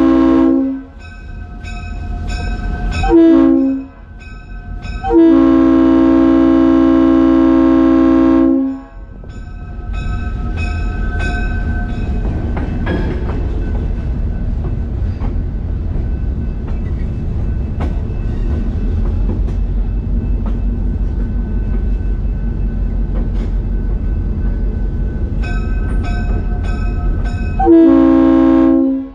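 Diesel locomotive air horn sounding a crossing signal: a long blast ending, a short one, then a long one of about three seconds. Then the CF7's EMD 567 diesel prime mover runs steadily with wheel and rail clatter, until the horn starts another long blast near the end.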